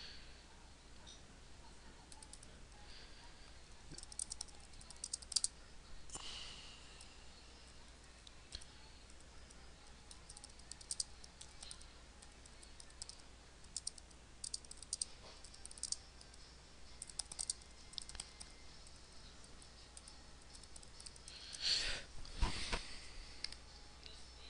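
Computer keyboard typing and mouse clicks, faint and in scattered clusters of keystrokes. Near the end comes a louder brief rustle with a low thump.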